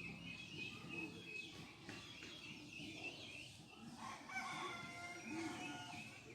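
A rooster crowing once, starting about four seconds in and lasting nearly two seconds, over steady background bird chirping.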